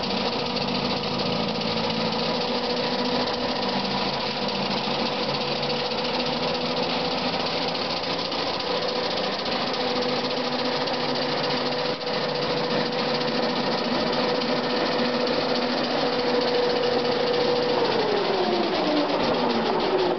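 Electric motors of a 1974 New Idea EGT 150 electric garden tractor and its front-mounted electric snowblower running, a steady high whine over the rush of snow being thrown out through the chute. About two seconds before the end the whine slides down in pitch as the motors wind down.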